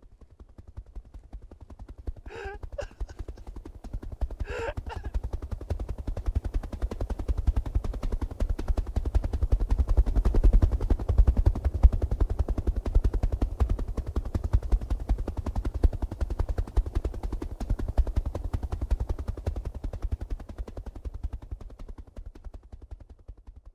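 A heavy low rumble with dense, rapid crackling. It swells gradually to a peak about halfway through and fades away near the end.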